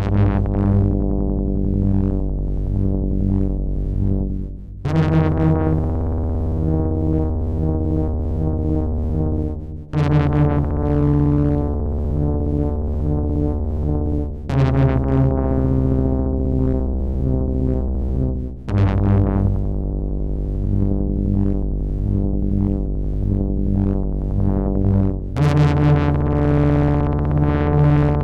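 Behringer 2600 analog synthesizer (an ARP 2600 clone) playing a rhythmic repeating pattern of low notes. It goes in phrases about five seconds long, each starting bright and growing duller as it goes, with a new bright phrase cutting in about every 4 to 6 seconds.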